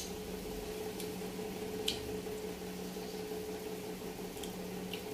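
Steady low electrical hum from a household appliance, with a few short clicks and smacks of someone eating with her hand.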